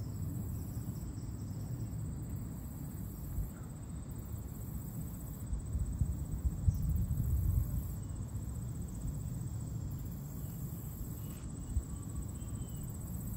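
Insects singing high and shrill in a steady chorus, in stretches that stop and start every second or two, over a low, gusting rumble that swells about six seconds in.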